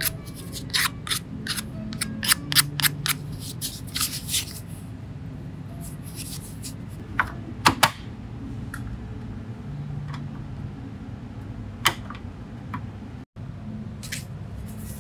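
Rapid sharp clicks and light taps, many in the first five seconds and then a few scattered ones, over a low steady hum.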